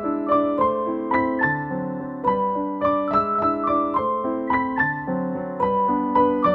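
Background piano music: a gentle melody of single notes, about three or four a second, over sustained lower notes.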